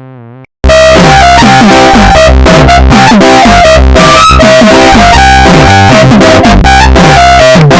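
A goofy meme ringtone melody on synth and electric-piano sounds, ultra bass-boosted, so it plays distorted at full loudness with heavy bass. Before it there is a brief, quieter wavering tone, and then the loud melody cuts in less than a second in, repeating short notes over falling bass notes.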